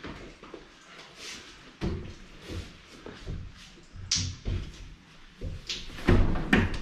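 Knocks and bumps of someone climbing out of the top hatch of a bulk milk tank and down a metal step ladder, the loudest cluster near the end.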